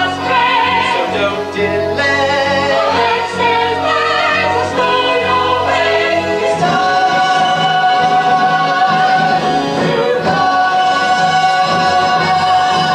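Musical-theatre ensemble singing with accompaniment. The voices move quickly for the first half, then settle on long held notes with vibrato.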